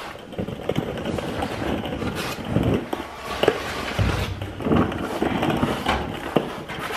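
Handling noises of a person lying on a mechanic's creeper: shuffling, rustling and irregular knocks as he shifts about and fits a welding helmet, with a few louder thumps in the middle.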